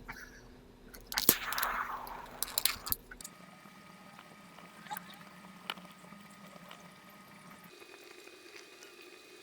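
A short burst of liquid being poured or splashed, with a few sharp clicks, lasting about two seconds from about a second in; then quiet, with a few faint isolated clicks.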